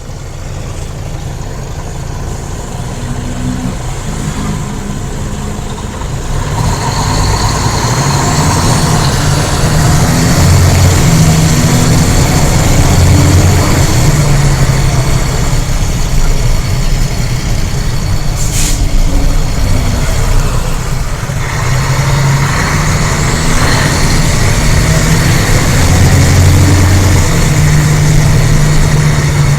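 Mercedes-Benz O-500UA articulated bus's diesel engine running under load through its ZF automatic gearbox. The engine gets louder about a quarter of the way in and again about two-thirds through, and a high whine rises and falls twice. A brief sharp sound comes a little past the middle.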